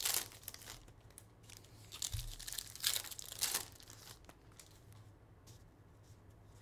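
Baseball card pack wrappers being torn open and crinkled by hand. Crackling rustles come loudest at the very start and twice about three seconds in, then turn fainter.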